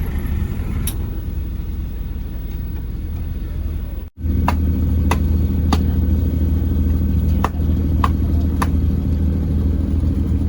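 Engine running steadily with a low hum. About four seconds in the sound cuts out briefly and comes back louder, with two sets of three sharp clicks over it, each click about half a second apart.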